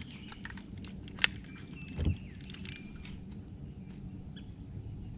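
Quiet handling sounds as a bass is hung on a fish scale: scattered small clicks, a sharp click about a second in and a dull knock about two seconds in. Faint bird chirps are heard around the middle.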